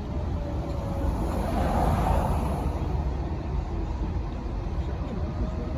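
Low street-traffic rumble, with a vehicle passing that swells and fades about two seconds in. Underneath is the faint tone of a distant Federal Signal 2001-SRN outdoor warning siren, which fades out after the first second and returns near the end.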